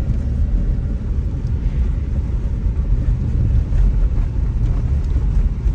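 Steady low rumble of a car driving along a road, heard from inside the cabin: engine and tyre noise with no distinct events.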